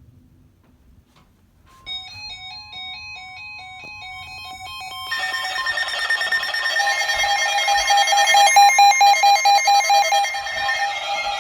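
Weather radio receivers sounding alert tones for a severe thunderstorm warning: a steady tone with a beeping, alternating alarm pattern about two seconds in. About five seconds in, more overlapping warbling alarms join and the sound gets louder.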